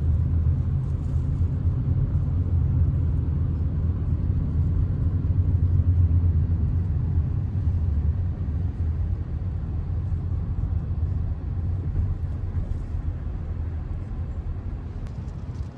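A car being driven: a steady low rumble of engine and road noise that slowly eases off over the second half.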